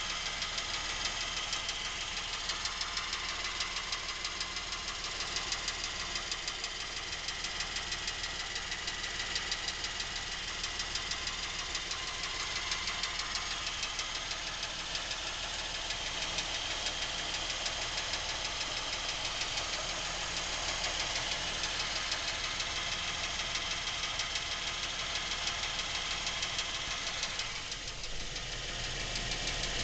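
Lincoln MKX's Ford 3.7-litre V6 running steadily with a rapid, even ticking knock. The owner has heard this noise since the car was new and finds it getting worse, while the dealer calls it normal.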